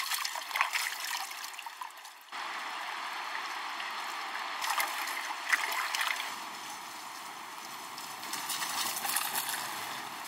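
Water trickling and splashing, with scattered sharp splashes; the sound changes abruptly about two seconds in.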